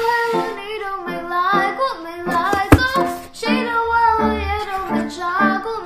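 Background pop song: a high-voiced singer over a light accompaniment of short, evenly paced low notes. A single sharp click cuts through about two and a half seconds in.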